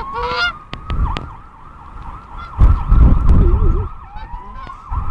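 Emergency vehicle siren yelping, its pitch dipping and springing back about three times a second, after a slower wailing glide at the start. A loud low rumble comes in about two and a half seconds in and lasts about a second.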